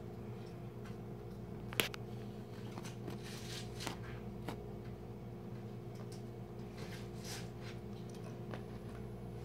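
Two cats playing: scattered light scratches and taps of paws and claws, with one sharper click about two seconds in, over a steady background hum.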